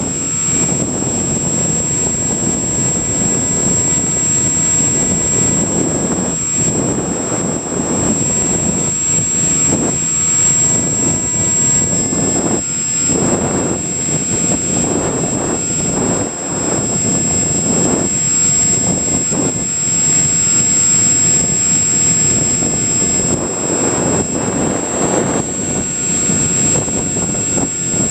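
Onboard audio of an EasyStar electric model plane in flight: a steady rush of wind and propeller noise that swells and eases every few seconds, with a thin, high, steady whine over it.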